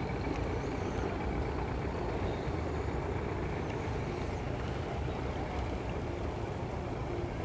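Engine running steadily with a low, even rumble.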